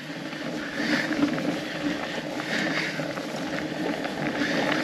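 Fat bike on studded tyres rolling over a frozen, snow-dusted trail: a steady rolling noise.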